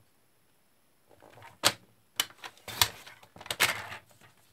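Paper trimmer cutting thick white cardstock: the blade carriage scrapes along the rail and ends in a sharp click, followed by a few more clicks and a longer rasp of card and trimmer being handled near the end.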